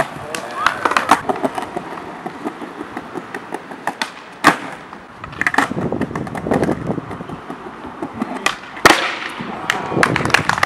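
Skateboards on stone paving: a dozen or so sharp, irregular clacks of board tails and decks hitting the ground over the rumble of wheels rolling, with voices in between.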